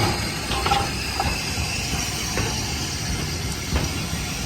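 Hudswell Clarke steam locomotive moving slowly with its train, with a steady hiss of steam and a few faint clicks from the wheels and stock.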